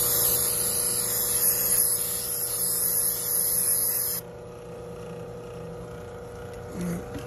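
Aerosol can of clear Flex Seal spraying in one long hiss into a pool pump's plastic strainer housing, cutting off about four seconds in.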